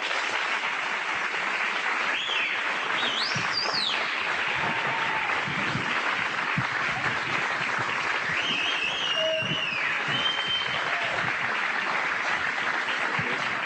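Studio audience applauding steadily as a guest walks on, with a few high calls from the crowd rising over the clapping about three seconds in and again about nine seconds in.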